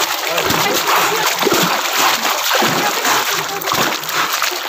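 Water splashing and churning continuously as a person swims breaststroke, arms sweeping through the surface with each stroke.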